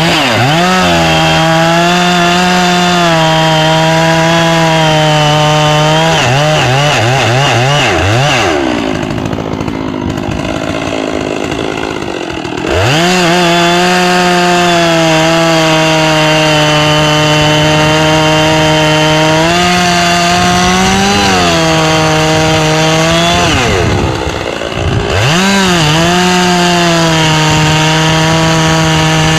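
Neotech NS842V two-stroke chainsaw running at full throttle through hard, dry oak on a full-chisel chain. About a third of the way in the revs fall to idle for a few seconds, and again briefly later, each time climbing back up to a steady high whine.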